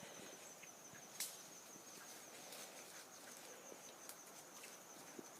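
Faint insect chorus in the woods: a steady, high, finely pulsing trill of crickets, with a few soft clicks, the clearest about a second in.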